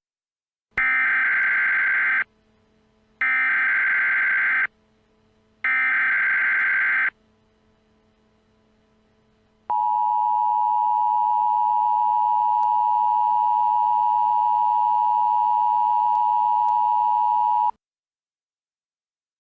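Emergency Alert System tones: three short bursts of the SAME digital header, each about a second and a half long, then the two-tone attention signal held steady for about eight seconds and cutting off suddenly.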